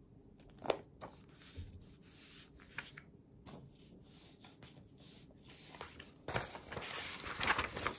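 Sheets of patterned paper rustling and rubbing as they are handled and laid down on a pile, with a brief sharp rustle under a second in and a louder stretch of paper sliding and rubbing in the last two seconds.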